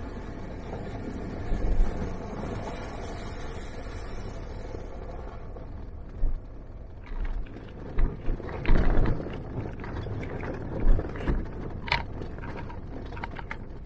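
A Jeep driving along a forest trail, with steady engine and road noise; at first there is the hiss of tyres running through shallow water. In the second half, loud thumps and rattles come as it bounces over ruts in the sandy track.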